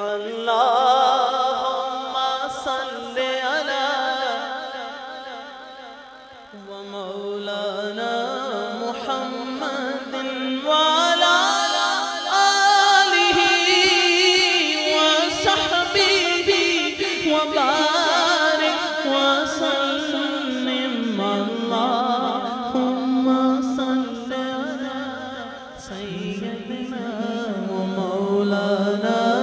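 A man singing an Urdu naat, an unaccompanied devotional chant, into a microphone, in long ornamented melismatic phrases that swell and fade, over a steady low drone underneath.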